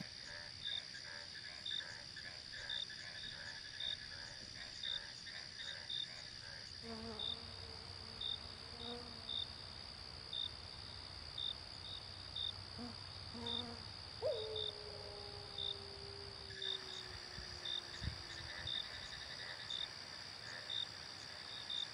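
Night-time insect chorus: a steady high-pitched trill with a short chirp repeating about once a second. A faint low call sounds a few times, and one low tone falls slowly over a few seconds about midway through.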